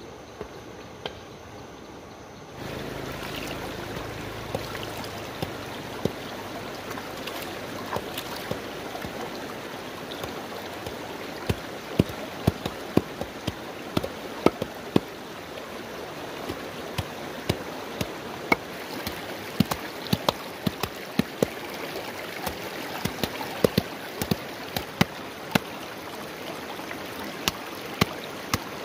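Shallow stream running over rocks, with sharp, irregular knocks from about a third of the way in, sometimes several a second: a wooden stick beating a mat of river moss against a stone.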